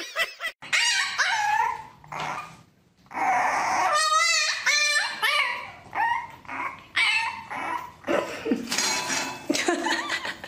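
A dog vocalizing in a string of short calls that slide up and down in pitch, one near the middle with a fast wavering pitch.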